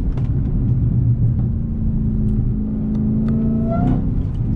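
Dodge Hellcat's supercharged 6.2-litre HEMI V8 running while the car is driven, a steady low rumble that rises briefly in pitch near the end. Faint light ticks come through it, which fit the suspension creaking the driver complains of.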